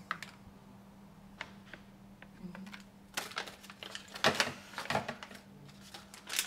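Scattered clicks and knocks with short rustles as kitchen items are handled on a countertop, busier and louder in the second half.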